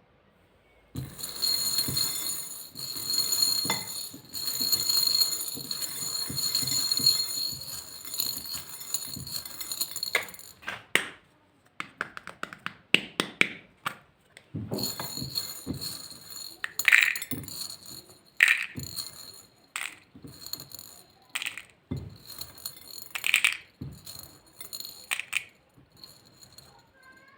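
Small hard pieces rattling together in a dense, continuous rattle for about nine seconds. After that come separate sharp clicks and clinks, a few each second.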